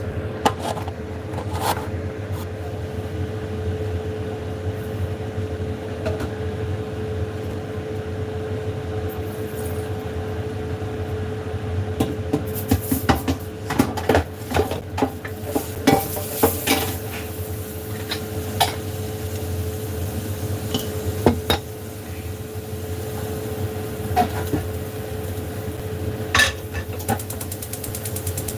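Kitchen utensils clinking and knocking against bowls and pans: scattered single clicks, with a quick run of clattering about halfway through, over a steady hum.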